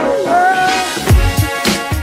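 Background music with a funky beat and deep bass-drum hits, a sliding lead tone near the start.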